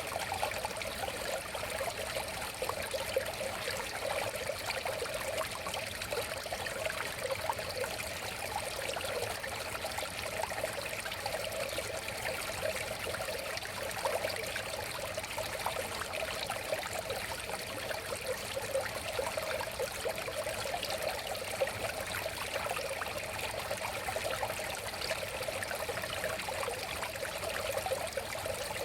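River water flowing steadily, with a continuous babble and small splashes.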